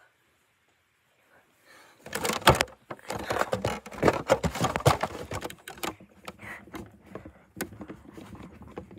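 Handling noise of a phone being carried by hand while walking: rubbing, knocks and clicks that start suddenly about two seconds in and go on irregularly.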